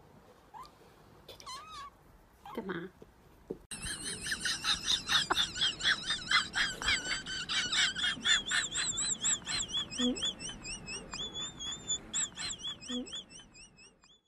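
Rapid, high-pitched animal chirping: a steady run of short wavering chirps, several a second, starting about four seconds in and thinning out near the end, after a few faint short calls.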